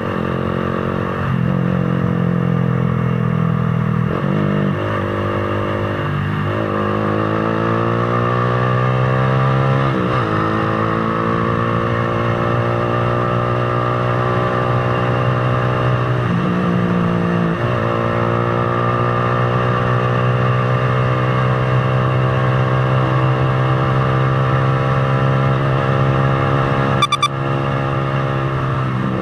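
Motorcycle engine under way, pulling up in pitch through the gears with several drops where it shifts, then holding steady at cruising speed for long stretches. A short sharp click sounds near the end.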